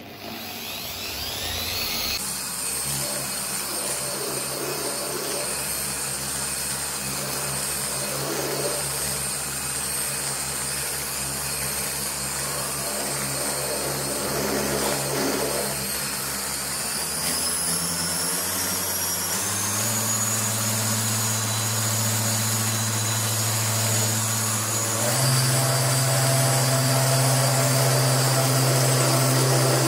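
Dual-action orbital polisher spinning up and then running steadily while it works compound into car paint. Its hum steps up in pitch twice in the second half and grows a little louder.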